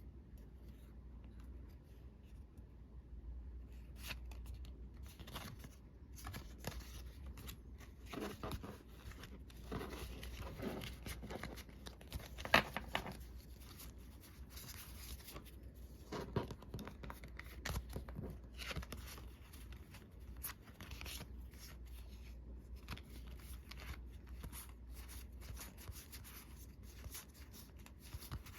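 Magic: The Gathering booster packs being opened and handled: foil wrappers crinkling and tearing, with scattered clicks and rustles of cards, and a sharper snap about halfway through.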